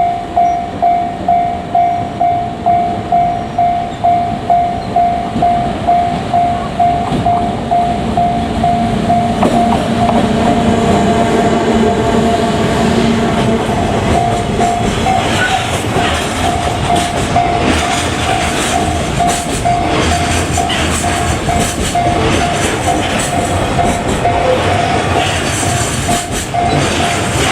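Japanese level-crossing warning bell ringing steadily, about twice a second. About a third of the way in, a JR Freight EF510 electric locomotive passes, followed by freight wagons whose wheels clatter over the rail joints.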